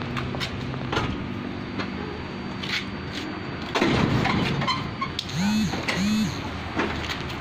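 Mitsubishi Colt Diesel truck cab door being unlatched and swung open: scattered clicks of the latch and handle, a loud clatter about four seconds in, then two short squeaks a little over half a second apart, over a low steady hum.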